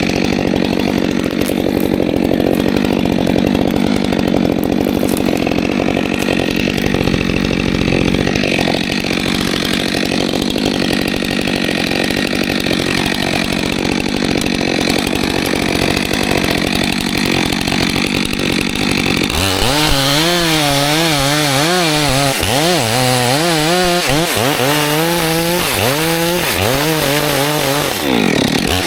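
Stihl 462 C-M two-stroke chainsaw running at full throttle through a cut with a steady high engine note. About two-thirds of the way through, the revs start rising and falling over and over, about once a second.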